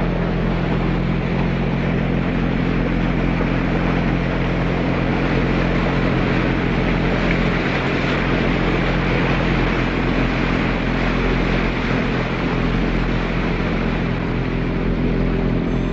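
Motorboat engines running steadily at speed: a constant low drone with a rushing hiss over it.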